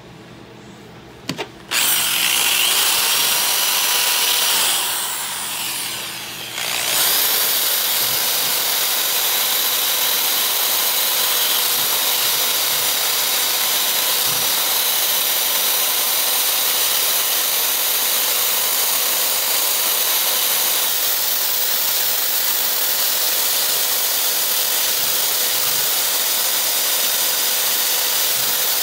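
Electric drill with a sanding disc sanding rust off the steel head of a double-bit axe, with a steady motor whine under the noise of the abrasive on the metal. It starts up about two seconds in, drops briefly around five to six seconds, then runs steadily.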